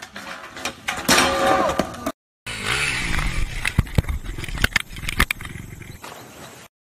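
Skateboard clattering and scraping on a metal rail, then, after a brief silent cut, a dirt bike's engine running. Knocks and a splash follow as the bike rides off the bank into a pond.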